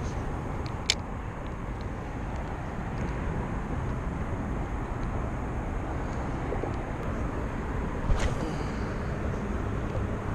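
Steady low noise of freeway traffic on the overpasses overhead. Two sharp clicks stand out, about a second in and again about eight seconds in.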